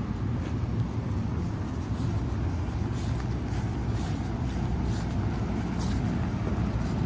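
NJ Transit MultiLevel double-deck passenger train rolling past along the platform: a steady low rumble of steel wheels on rail, with faint short ticks scattered through it.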